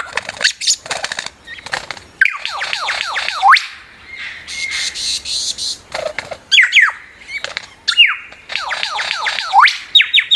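Lyrebird calling: several runs of quick whistles, each falling in pitch, mixed with sharp clicks and short notes, and a fast rattling stretch about four to six seconds in.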